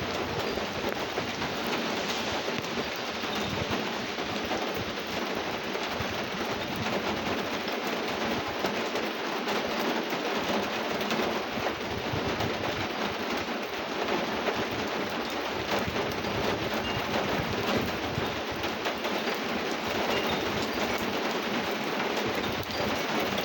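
Rain falling steadily: an even hiss with the fine ticking of drops.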